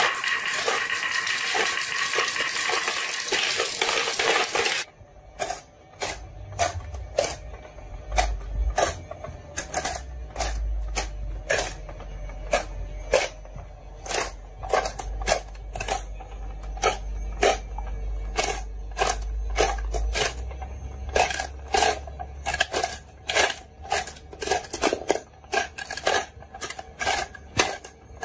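A rush of many glass marbles rolling and rattling down a wooden slope, which stops suddenly about five seconds in. After that come sharp, irregular clicks, one to three a second, of glass marbles knocking against each other and the plastic board of a toy fishing game, with a low hum underneath.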